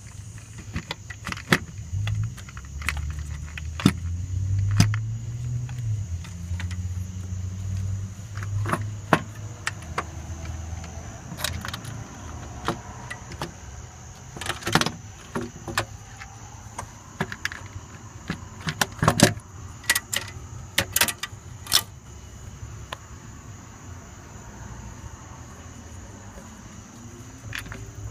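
Hand work in a pickup's engine bay: irregular metallic clicks and clinks of fasteners, clips and tools being handled. A low rumble runs under the first several seconds.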